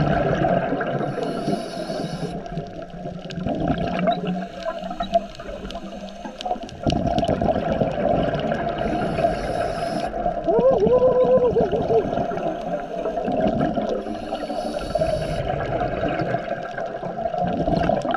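Scuba diver breathing through a regulator underwater: three short hissing inhalations about six seconds apart, with exhaled bubbles rumbling and gurgling between them. A brief wavering tone sounds near the middle.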